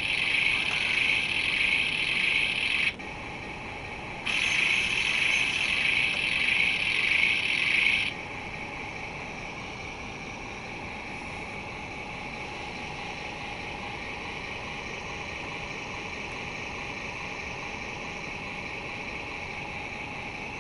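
Small electric motor and gearbox of an RC truck driving a wheel on the bench, powered through test leads: a loud steady whirring that runs for about three seconds, stops briefly, runs again for about four seconds and cuts off. A fainter steady hum follows.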